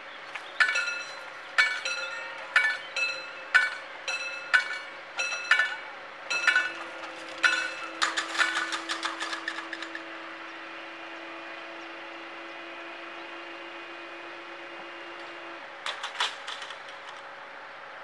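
Electromechanical level-crossing bell ringing with single metallic strokes about once a second, then a quicker run of strokes, as the full barriers close. The barrier drive hums steadily while the booms lower, and a short burst of clanks comes near the end.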